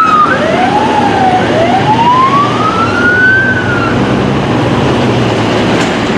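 Emergency vehicle siren wailing, its pitch rising and falling in sweeps, then stopping about four seconds in. Road and engine noise of traffic continues beneath it.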